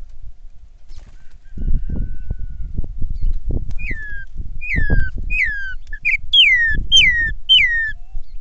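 A bird calling a series of about seven clear whistled notes, each sliding down in pitch, roughly two thirds of a second apart, starting about halfway through. Low rumble and thuds run underneath from about a second and a half in.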